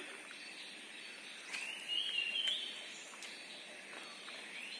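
Tropical rainforest ambience: a steady high insect drone, with a bird's rising, wavering call lasting about a second, starting about one and a half seconds in.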